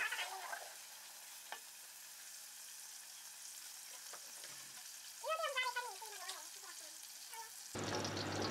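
Sliced onions frying in oil and ghee in an aluminium pot, a faint steady sizzle as they are stirred with a wooden spoon, with a light tap or two. About five seconds in a brief high call rises and falls, and near the end the sizzle turns suddenly much louder as the onions are browning.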